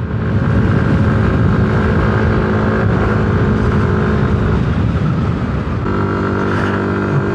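Yamaha Aerox 155 scooter's single-cylinder engine running steadily under way, with heavy wind noise. About six seconds in, the engine note settles to a different pitch.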